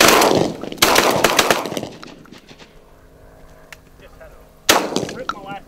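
Shotgun blasts at incoming pigeons: two shots less than a second apart at the start, each ringing out, then a third shot about four and a half seconds later.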